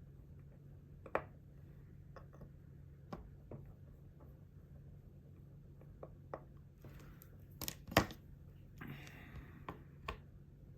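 Small, sharp clicks and taps of watchmaker's tools (screwdriver and tweezers) on a wristwatch movement as the gear train bridge is unscrewed and lifted, over a low steady hum. The loudest click comes about 8 s in and is followed by a brief scratchy rustle.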